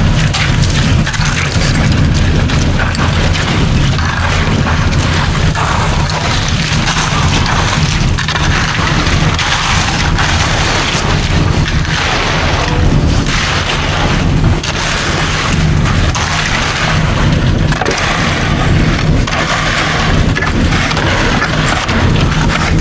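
Concrete mixer truck's diesel engine running steadily at the pour: a loud, even low hum with a noisy rush over it.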